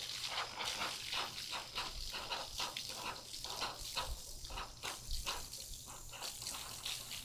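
Home-made foaming car-wash brush sputtering out foam and water in short irregular spurts, two or three a second, over a faint steady low hum.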